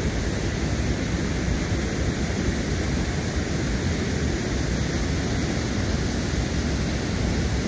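Wind blowing across the microphone: a steady rushing noise, heaviest in the low end, with no breaks.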